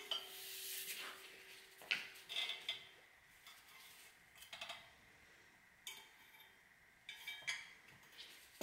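Scattered metallic clinks and taps of a wrench on a bolt and on the steel brake-rotor base of a camera arm, about one every second or two. A faint ringing tone lasts through the first three seconds.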